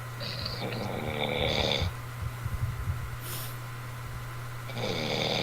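A man snoring heavily: two long snores, the first lasting about a second and a half, the second starting near the end, with a brief hiss between them.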